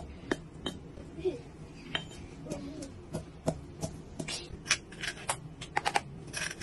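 Stone pestle pounding in a granite mortar, crushing dried chilies and garlic: sharp knocks at an uneven pace that quicken into a fast run of strikes near the end.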